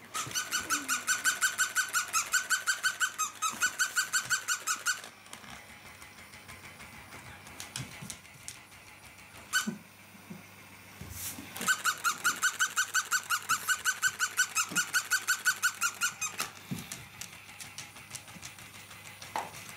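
A plush toy dog giving a rapid, squeaky yapping, about six yips a second, in two runs of about five seconds each: one at the start and one from about twelve seconds in. A few light knocks come in between.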